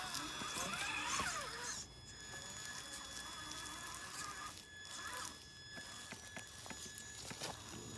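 Electric drive whine of Traxxas Summit RC monster trucks, the pitch rising and falling with the throttle over the first two seconds. After that a quieter, steadier high whine follows, with scattered clicks from the tyres and chassis knocking on the log.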